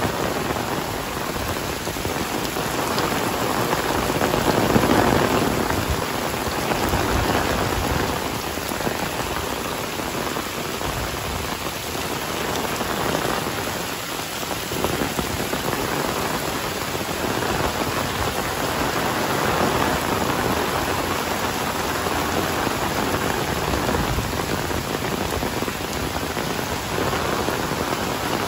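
Heavy rain falling steadily, swelling louder for a moment about five seconds in.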